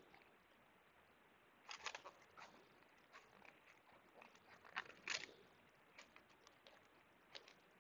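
Faint, scattered crisp clicks and rustles of a gloved hand handling a laptop's display flex cable, in short clusters, loudest about five seconds in.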